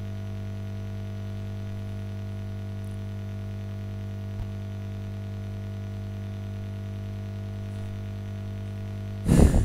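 Steady electrical hum with several overtones on the recording, running unchanged, with a faint click about four seconds in. A short, loud burst of noise comes near the end.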